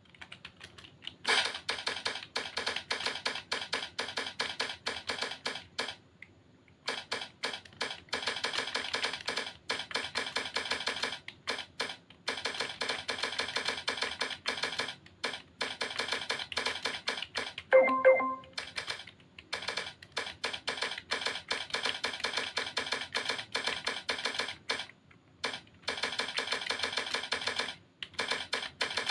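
Laptop keyboard being typed fast, at about 52 words a minute, in quick runs of key clicks broken by short pauses. Just before 18 seconds in, a brief pitched tone is the loudest sound.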